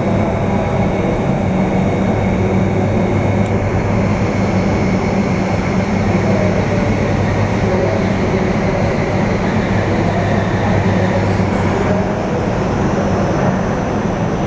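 Hurricane-simulator wind tube running steadily: a loud, even rush of blown air with a steady low hum from its blower.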